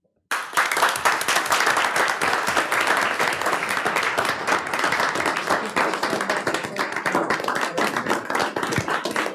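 A room full of people applauding, breaking out suddenly just after the start and going on at a steady level.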